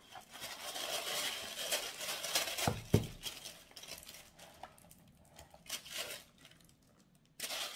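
Packaging rustling and crinkling as products are handled and lifted out of a beauty box, with a sharp knock about three seconds in and a short burst of rustling near the end.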